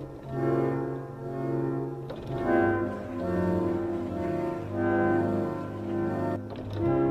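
Instrumental background music: slow phrases of sustained low, pitched notes that swell and fade.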